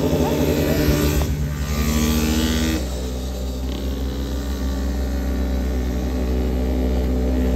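Motorcycle engines running steadily. A rushing noise comes in about a second in and cuts off sharply a little under three seconds in. After that the engine note settles lower and a little quieter.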